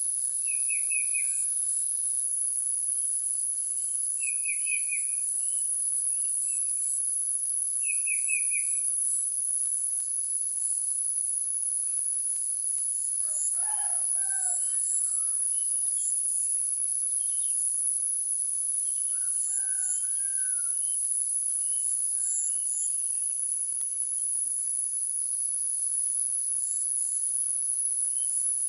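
Dawn chorus in a rural village: a rooster crowing about halfway through and again a few seconds later, over a steady high chirring of crickets. A small bird calls three times in the first few seconds.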